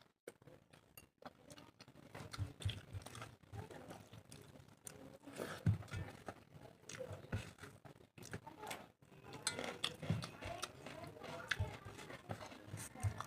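A person chewing and smacking their lips while eating rice and curry close to the microphone, with a string of irregular wet clicks and smacks.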